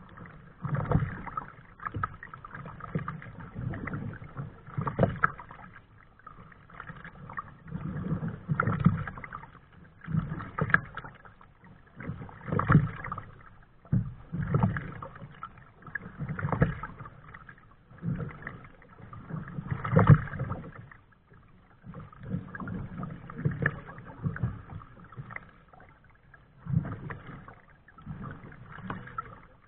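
Kayak paddle strokes in water, a splashing swish that comes in an even rhythm of about one stroke every two seconds.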